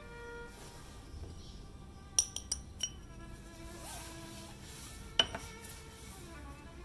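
Background music of sustained, slowly changing notes, broken by a quick run of four sharp clicks a little over two seconds in and one louder click about five seconds in.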